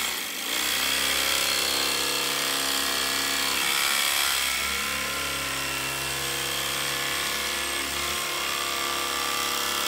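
Electric carving knife running steadily as its blade saws through gray foam air-conditioner pipe insulation, a continuous motor buzz that starts about half a second in.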